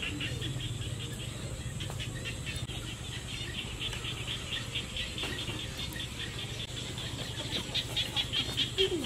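Outdoor ambience of a fast, even chirping, about six high chirps a second, growing louder near the end, over a low steady rumble.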